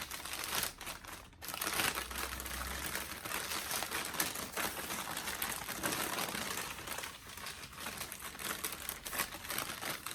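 Packing material crinkling and rustling as it is unwrapped by hand. After a short lull about a second and a half in, it goes on almost without a break.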